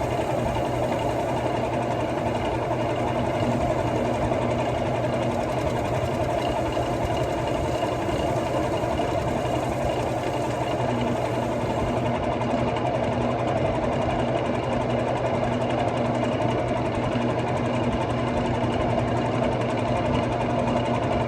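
Wood lathe running steadily at low speed with a constant motor hum, while an abrasive pad is held against the spinning red cedar bowl, adding a faint sanding hiss.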